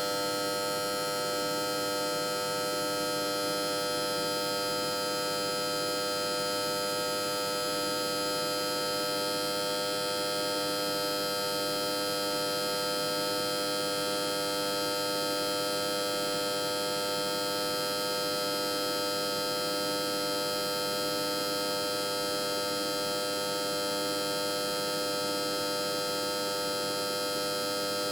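Electric transformer giving off a steady electrical hum and buzz: several fixed tones held unchanging over a faint hiss.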